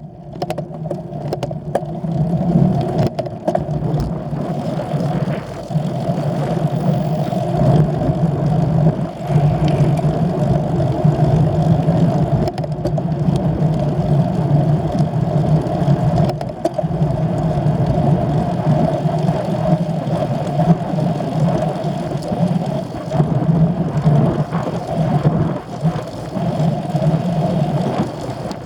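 An engine running steadily, a constant low drone that stays at one pitch with no revving.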